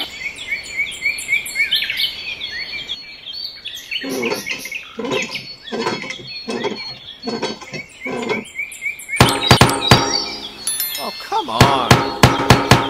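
Birds chirping, then the handle of a miniature hand pump being worked up and down: rhythmic squeaks at about two a second, then sharp clicks that speed up to about four a second near the end.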